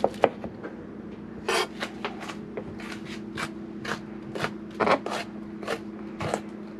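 Kitchen knife chopping on a cutting board in irregular strokes, roughly two a second, a few of them louder, over a steady low appliance hum.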